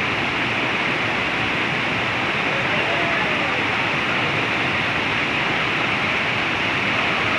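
Whitewater rapids rushing steadily over and around river boulders.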